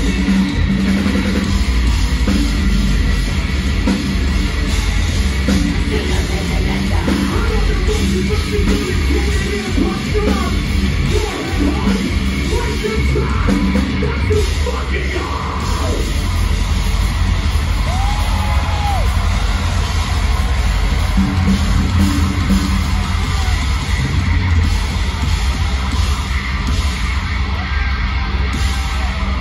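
Metalcore band playing live through a club PA: heavily distorted guitars, bass and pounding drums, with yelled, screamed vocals over the top, loud and unbroken.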